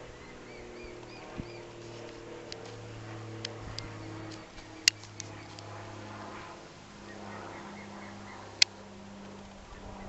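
Outdoor ambience with a steady low hum, a few short high chirps near the start, and scattered sharp clicks, the two loudest about five and eight and a half seconds in; the clicks fit the uploader's complaint that the new camera's audio is glitchy.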